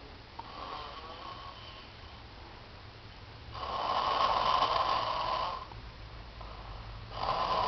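A man snoring in heavy sleep after a night of drinking: a faint snore about half a second in, a long loud snore from about three and a half to five and a half seconds in, and another beginning near the end.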